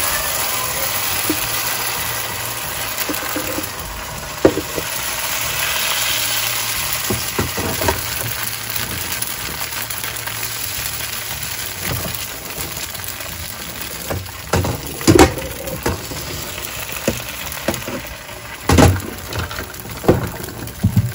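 Bánh xèo batter frying in a hot wok, a steady sizzle. A few sharp knocks come in the second half.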